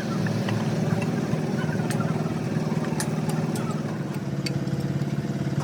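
An engine running steadily at idle, with a few light clicks over it.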